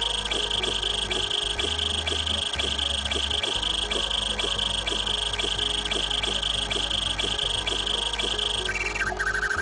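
Nokta Goldengate Plus 3D metal detector in deep mode sounding a steady high-pitched tone with rapid, regular ticking as its coil passes over a coin buried 30 cm deep: the constant, strong signal of a real target. Near the end the tone breaks off into short, lower, uneven beeps.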